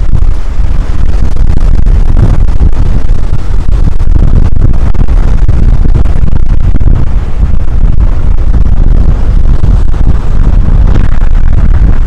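Strong wind buffeting the microphone, loud and deep, over the hiss of surf on the beach.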